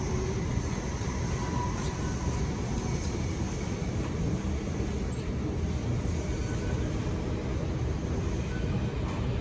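Singapore MRT train running: a steady, even low noise from the moving train.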